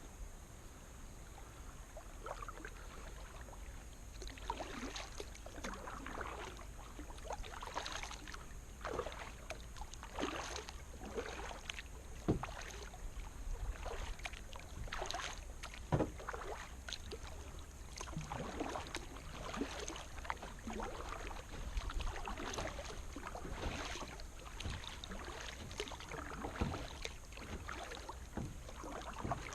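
Wake waves from a passing motorboat slapping and splashing against the hull of a Sun Dolphin Excursion 12 SS plastic kayak, in irregular splashes about every second or two, a few of them sharper, over a steady low rumble.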